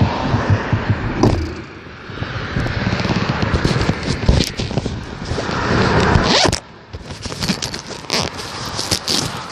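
A clothing zipper pulled in several short, scratchy strokes, the longest sweeping upward about six and a half seconds in.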